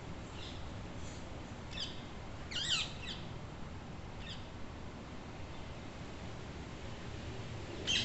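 Rose-ringed parakeets calling: short high calls every second or so, the loudest a falling call about three seconds in, and another near the end.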